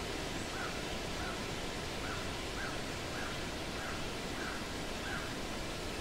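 Steady rush of a forest stream with a bird repeating a short call about eight times in an even series, roughly one every two-thirds of a second.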